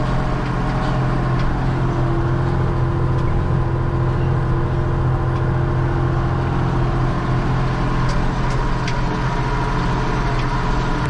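Ford TW-20 tractor's diesel engine running steadily at an even pitch, pulling harrows across a field.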